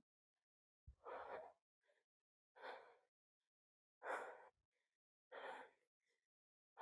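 A person breathing hard from the effort of walking uphill: five faint breaths, about one every second and a half, with near silence between them.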